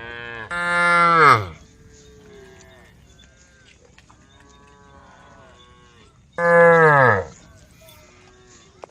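Cows mooing: a loud, close moo in the first second and a half and another at about six and a half seconds, each dropping in pitch as it ends, with fainter moos from other cattle of the herd in between.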